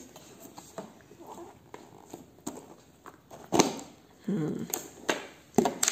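A child's hands handling a plastic colour box and lifting off its hexagonal plastic lid: a few light plastic clicks and knocks, the loudest about three and a half seconds in. A short voice-like sound comes a little after the loudest knock.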